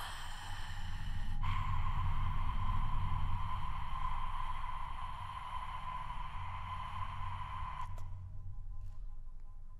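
Experimental vocal-electronic performance sound: a steady high tone over breathy hiss starts suddenly about a second and a half in and cuts off sharply about eight seconds in, leaving fainter held tones over a low hum.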